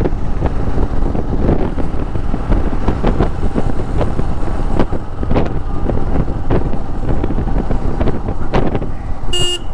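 Wind buffeting a helmet-mounted mic while riding a Royal Enfield Himalayan, with the motorcycle's single-cylinder engine running underneath in traffic. A horn beeps once, briefly, near the end.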